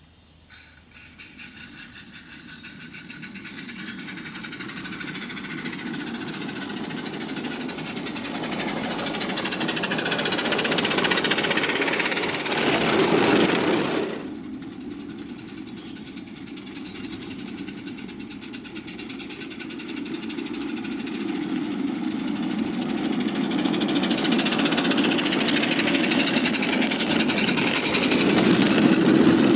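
16mm-scale live-steam Roundhouse Billy locomotive running with its train, a rapid exhaust beat and wheels on the rails growing steadily louder as it approaches. The sound drops suddenly about halfway through, then builds up again as the train draws near once more.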